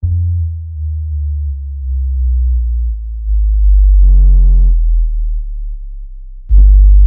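Synthesized water-ejection tones for earbud speakers: very deep bass sine tones that shift in level, meant to vibrate water out of the speaker. A brief buzzy higher tone sounds about four seconds in, and a loud buzzy tone starts near the end.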